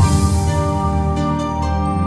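Instrumental new-age music with sustained chords, a bright high shimmer at the start, and a few light, sharp notes about a second and a half in.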